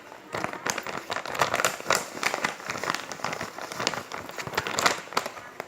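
Continuous irregular crinkling and crackling, like thin plastic packaging being handled.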